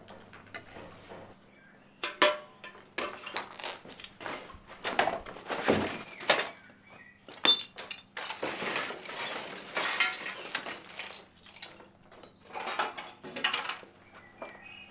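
Broken debris and rubble clattering and clinking as someone rummages and steps through it. Irregular knocks, scrapes and rattles start about two seconds in, some sharp and loud, and thin out near the end.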